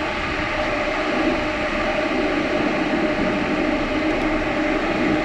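Steady drone of the MV Fiordland Navigator's engines: an even hum with a few steady tones over a hiss.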